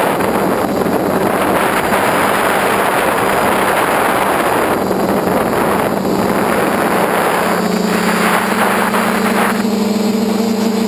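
Electric motors and propellers of a small FPV aircraft, heard from its onboard camera, with wind rushing over the microphone. The motor drone grows stronger and more tonal about two-thirds of the way through as the wind hiss eases.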